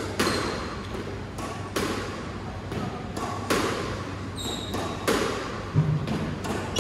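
Squash rally: the ball cracking off rackets and the court walls, about ten sharp hits at irregular intervals of roughly half a second to a second, each ringing briefly in the enclosed court.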